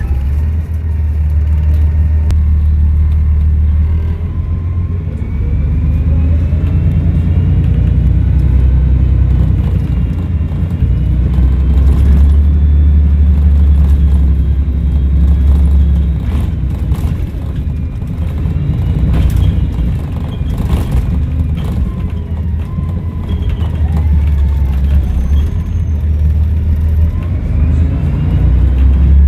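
Volvo B7RLE bus's straight-six diesel engine running and pulling through its Voith automatic gearbox, with a deep rumble that swells and eases. A high turbo whistle rises and falls over it, with occasional knocks and rattles.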